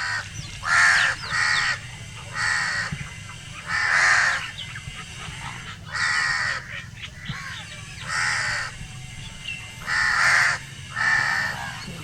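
A crow cawing repeatedly: about eight harsh caws, several coming in pairs, with pauses of one to two seconds between them.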